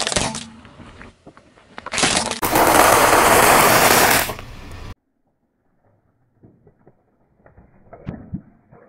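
A car tyre crushing a series of objects. There is a short crunch at the start, then nearly two seconds of loud, dense crackling as the tyre rolls over a pile of small, hard chocolate cereal balls. After a brief gap come faint squishes and a couple of pops as toothpaste tubes are squashed near the end.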